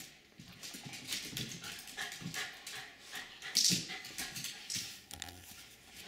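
Jack Russell terriers begging for steak, making a string of short, scattered whimpers and breaths, with one louder breathy puff about three and a half seconds in.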